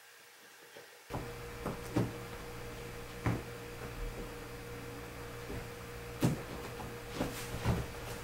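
Soft thumps, knocks and fabric rustles of two kittens playing, pawing and scrambling at a sheet-covered bed, starting about a second in over a steady low hum.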